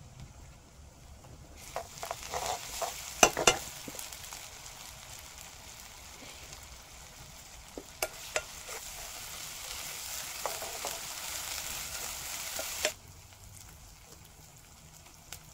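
Sliced onions sizzling in hot oil in a kadhai while a metal ladle stirs them, knocking against the pan a few times. The sizzle cuts off suddenly near the end.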